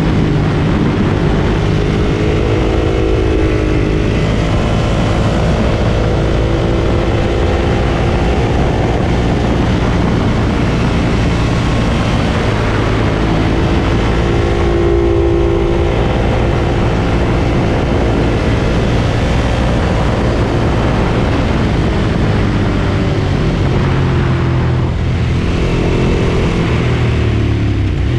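Ducati Monster 1200 S's L-twin engine running under way, its pitch rising and falling as the rider accelerates and eases off.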